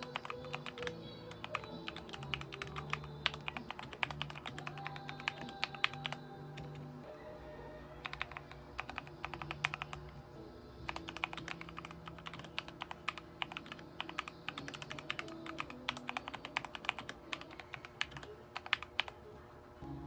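Typing on a Magegee MK-Star61 mechanical keyboard: fast runs of key clicks with two short pauses, about 7 and 10 seconds in, over background music.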